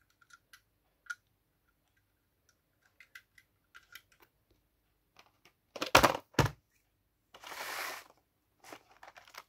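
Handling of a die-cast toy bus and its plastic blister packaging: scattered small clicks and taps, then two loud knocks about six seconds in, followed by a short rustle of the plastic pack being moved, and a few more clicks near the end.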